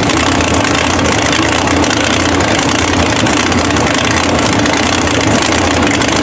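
Mega mud truck's engine idling loudly and steadily, with a low hum under a dense hiss.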